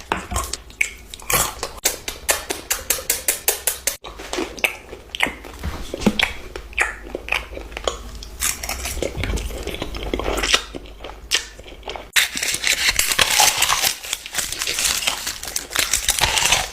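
Eating sounds: cutlery clicking and scraping against a dish, with biting and chewing. A quick run of even clicks comes in the first few seconds, and a denser crunching and crinkling fills the last few seconds.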